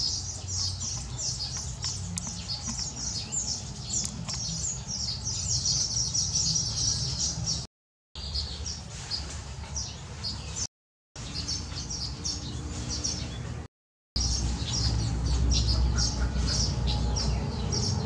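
Baya weavers chattering at their nest colony: a dense, continuous stream of short, high chirps, broken by three brief silences. A low rumble runs underneath and grows louder in the last few seconds.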